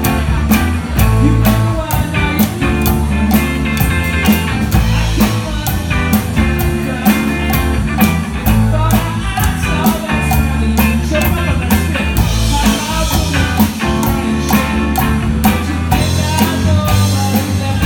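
Rock music playing loudly, with drum kit, guitar and some singing over a steady driving beat of sharp, evenly spaced strikes.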